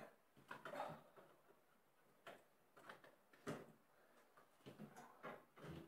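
Near silence broken by a handful of faint, scattered clicks and knocks.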